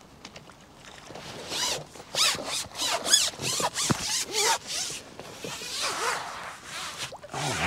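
Fishing tackle giving a run of quick, zip-like rasps while a hooked carp is played, loudest from about two seconds in for a couple of seconds, with fainter rasps later.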